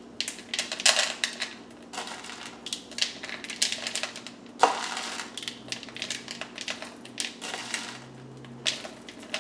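A spoon scraping and tapping in a small plastic bowl as chocolate chips are spooned out into cookie dough: a run of irregular small clicks and knocks.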